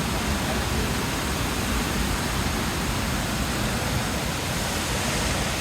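Skógafoss, a 60-metre waterfall, pouring: a steady, even rush of falling water with a deep rumble underneath.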